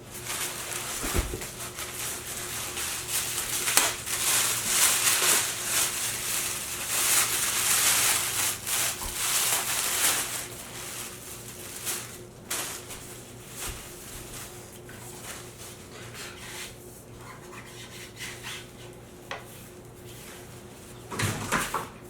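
Packaging being handled while a speaker is unboxed: rustling and scraping of wrapping and box material, loudest in the first half, with a few knocks and clicks, over a faint steady hum.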